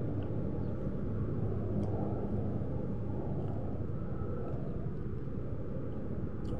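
Steady low background rumble with a faint hum, and a few faint ticks here and there.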